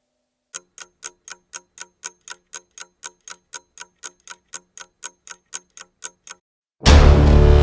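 Clock-like ticking sound effect, evenly spaced at about four ticks a second. Near the end it is cut off by a sudden loud hit with a deep low end.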